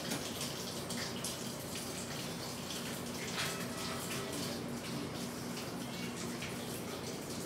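Water running steadily from a tap, with occasional short splashes.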